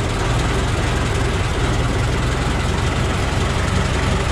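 Ford Model T four-cylinder engine idling steadily, freshly started from cold and still warming up.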